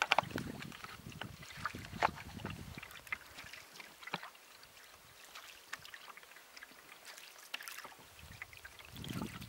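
Canoe paddle strokes in calm lake water: small splashes and drips from the blade, with a low rumble that dies away after about three seconds.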